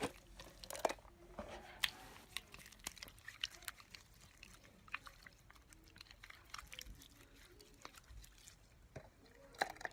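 Homemade slime being squeezed and stretched in the hands, giving off faint, irregular small wet clicks and pops.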